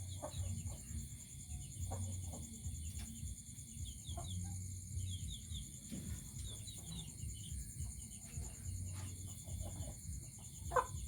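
Chickens clucking softly with short, high chirping calls, over a steady high drone of insects.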